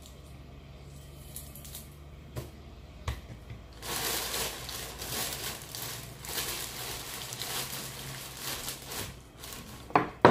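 Crinkling and rustling, like something being crumpled, for about five seconds from about four seconds in, after a low steady hum with a couple of clicks. A sharp knock comes near the end.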